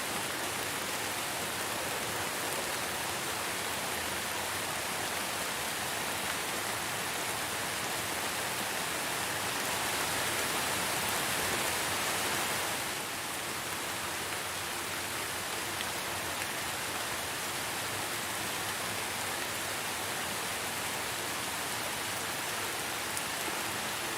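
Steady rain falling, an even hiss of many drops. It swells a little toward the middle and eases slightly just past halfway.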